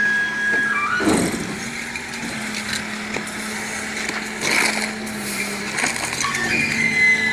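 Garbage truck's engine running steadily while rubbish thrown into its rear loader knocks and clatters several times, with a few brief high squeals.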